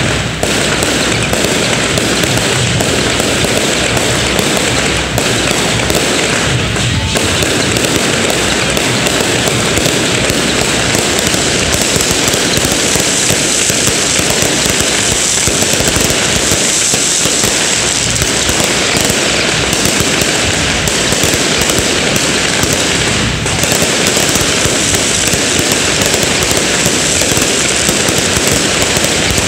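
Fireworks and firecrackers going off in a dense, continuous crackle of rapid pops, loud and unbroken.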